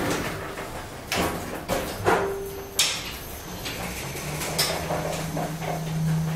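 Elevator working behind its closed doors: a run of sharp knocks and clunks, then a steady low hum as the car travels.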